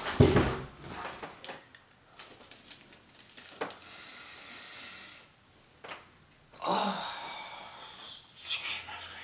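A heavy thump right at the start, then faint handling clicks and rustles, and a man's loud breathy exhale about seven seconds in.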